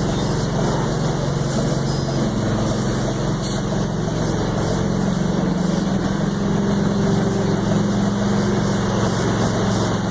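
Engine running steadily, with a slight change in its note about two seconds in.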